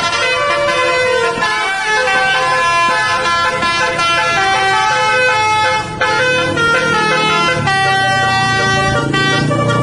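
Tour bus's basuri musical horn, the Indonesian 'telolet' kind, playing a tune as a loud string of held notes that step from pitch to pitch. A lower drone joins underneath about halfway through.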